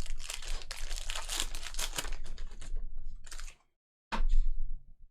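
A trading card pack's wrapper being torn open and crinkled, a dense crackling rustle for about three and a half seconds, then a shorter crinkle about four seconds in.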